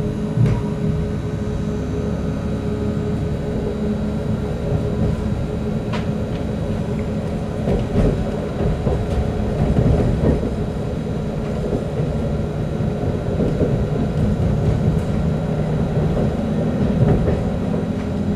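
Kiha 283 diesel multiple unit running under power, a steady diesel engine drone with wheel and rail noise. A few sharp clacks about six, eight and ten seconds in as the wheels cross the passing loop's points.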